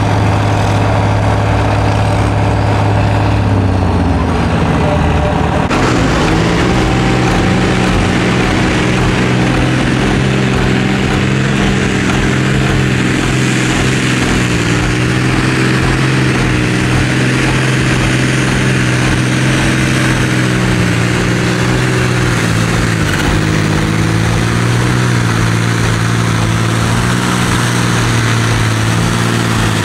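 Diesel tractor engine running hard under heavy load while pulling a weight-transfer sled, its pitch holding high with slight dips and rises. The engine note changes abruptly about five seconds in.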